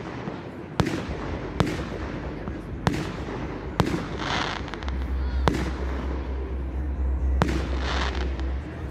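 Fireworks display: a string of sharp bangs from shells bursting in the air, roughly one a second, each trailing off in a short echo.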